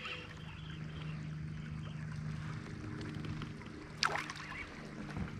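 Steady running-water noise under a low hum, and about four seconds in one sharp, brief splash as a hooked river smallmouth bass thrashes at the surface.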